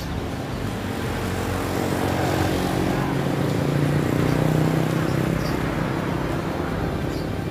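Engine of a passing vehicle, a steady hum that grows louder to a peak about halfway through and then fades.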